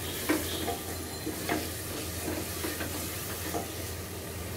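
Wooden spatula stirring a thick spice masala in an aluminium pressure cooker, scraping and tapping against the pot about once a second, over the steady sizzle of the paste frying in oil after the oil has separated.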